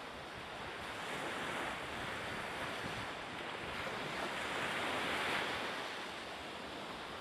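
Ocean surf with wind: a steady rushing hiss of waves that swells twice, loudest about five seconds in.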